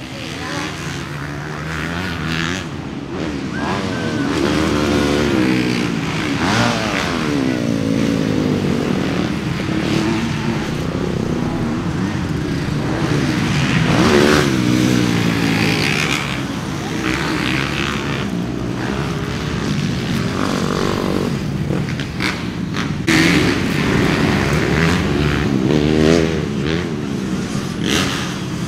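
Several dirt bike engines racing. They overlap, each rising and falling in pitch as the riders accelerate, shift and pass by.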